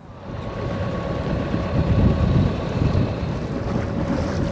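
A sailboat's inboard engine running steadily as the boat motors out of its slip, with a low hum and wind rumbling on the microphone.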